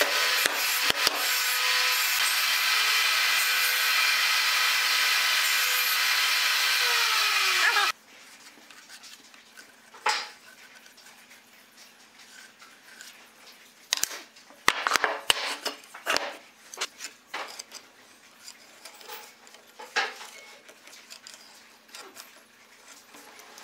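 Thickness planer running steadily, then spinning down with falling pitch about eight seconds in. After that, wooden knocks as boards are handled and set on a workbench, and a pencil scratches along the wood, tracing a template.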